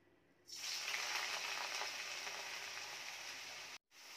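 Wet grated bottle gourd sizzling and crackling as it hits hot ghee in a steel kadhai, starting suddenly about half a second in. The sizzle holds steady, with a brief break near the end.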